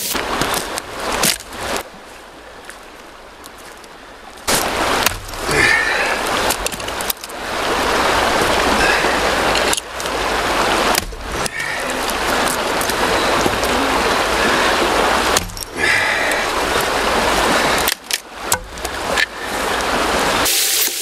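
Chopping knocks and wood cracking as dead wood is split into firewood with a hatchet, clustered near the start and near the end. Between them a loud, steady rushing noise fills most of the middle, breaking off abruptly several times.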